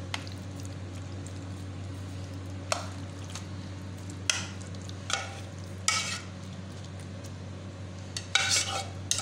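A plastic spatula scraping and scooping creamy penne pasta from a pot into plastic takeaway containers, with a few separate knocks of utensil on plastic and a quick run of clatters near the end, over a steady low hum.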